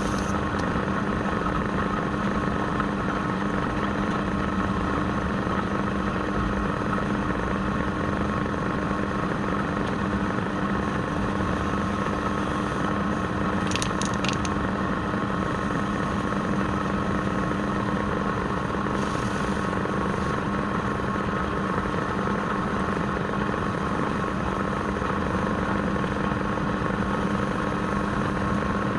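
Wood lathe's electric motor running at a steady speed, a constant hum with a few quick high clicks about halfway through.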